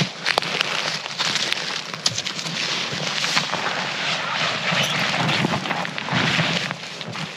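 A large fabric picnic blanket being pulled from its bag and shaken open, rustling and flapping in several swishing surges, with scattered small crackles.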